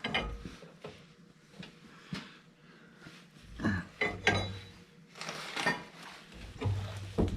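Scattered metal clinks and knocks of tools and steering parts being handled, a few sharp taps and a busier clatter about two-thirds of the way through.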